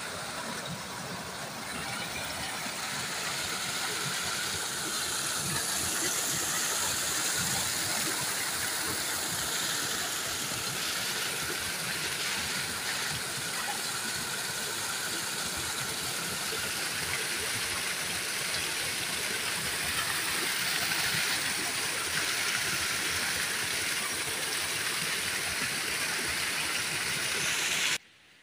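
Small stream of water gushing over rocks while a plastic jerrycan is held in the flow and filled; a steady rush of water that stops abruptly near the end.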